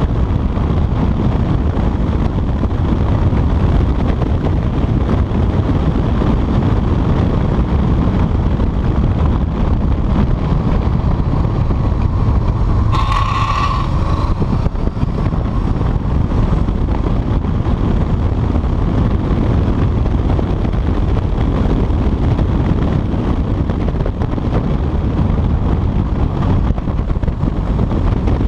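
Motorcycle riding at speed: wind buffeting a chest-mounted action camera's microphone over the Honda CBR's engine running underneath. About 13 seconds in, a brief higher-pitched sound cuts through for about a second.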